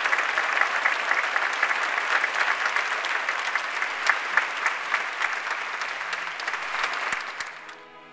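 Large audience applauding, many hands clapping together, the applause dying away near the end.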